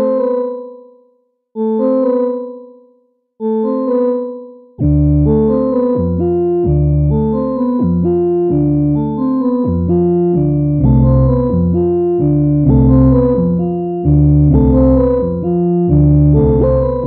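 Electronic keyboard music with a piano-like sound: a single chord struck and left to fade about every second and a half, then about five seconds in a fuller pattern of chords over a deep bass starts, changing every half second or so.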